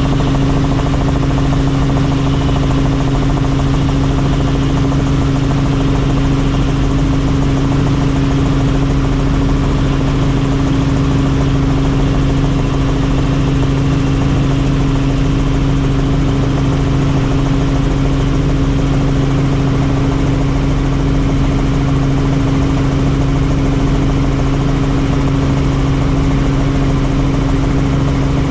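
Helicopter in flight: a loud, steady drone of engine and rotor with a constant low hum.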